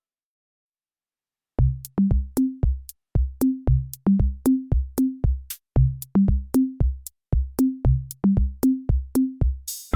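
Background music: silence for about a second and a half, then a steady electronic beat of deep kicks and sharp clicks starts up, with a short swell just before the end.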